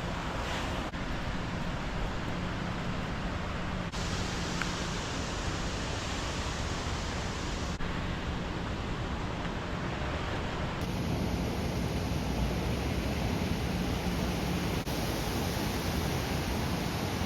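Waterfall's rushing water: a steady, even roar whose tone shifts abruptly several times as the recording cuts between shots.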